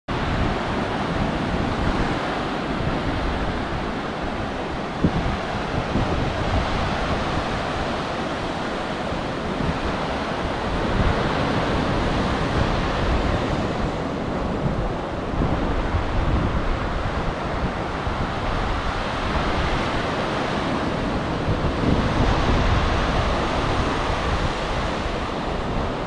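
Small surf breaking and washing up a sandy beach: a continuous rush of waves that swells and eases every few seconds.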